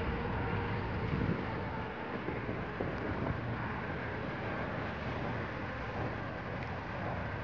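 Twin-engine jet airliner taxiing, its engines running at taxi power as a steady, even noise, with some wind on the microphone.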